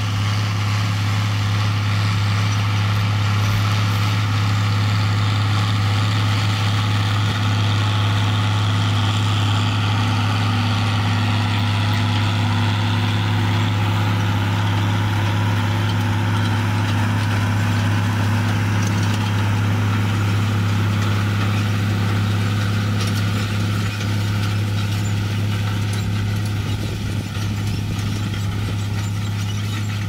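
John Deere 6510 tractor's six-cylinder turbo diesel running steadily under load, pulling two John Deere 1590 seed drills while planting. A steady drone that eases a little over the last few seconds as the tractor moves away.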